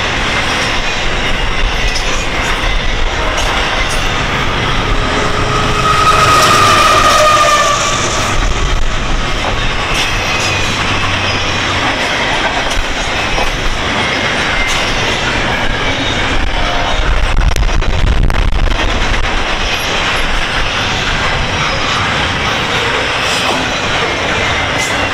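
Freight train of intermodal well cars rolling past: a steady rumble and clatter of wheels on the rails, with a brief high wheel squeal about six seconds in.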